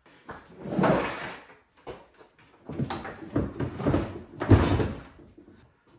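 Plastic tackle crate (YakAttack BlackPak Pro with ShortStak) being handled and set down into a kayak's rear tank well: scraping and knocking of plastic on plastic in a few irregular bouts, the loudest a thump about four and a half seconds in as it drops into place.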